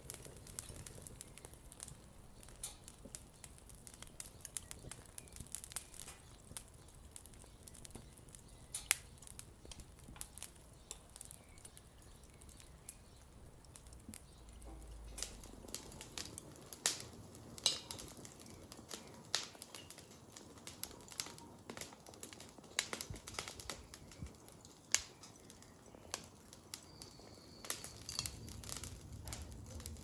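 Small wood fire crackling in a steel barbecue grill: scattered sharp pops and snaps over a low hiss, coming more often and louder in the second half.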